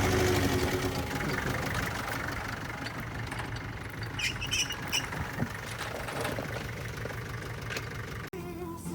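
Off-road vehicle engine idling steadily, loudest at the start and easing off. A few short high chirps come about four seconds in.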